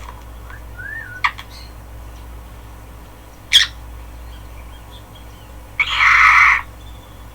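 Birds calling in a nature soundscape: scattered short chirps and a brief rising-and-falling whistle, a sharp call about three and a half seconds in, then a loud, harsh squawk lasting under a second near the end.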